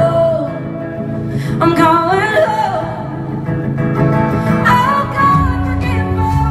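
Live band playing a folk-rock song, with acoustic and electric guitars, bass and drums, and sung vocal lines over them.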